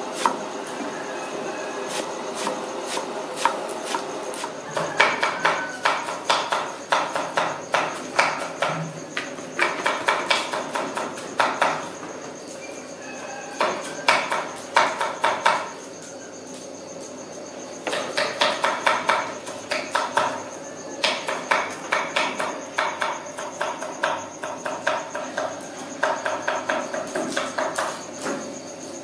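A knife chopping rapidly on a wooden chopping block, in runs of quick knocks a few seconds long with short pauses between, over a faint steady high whine.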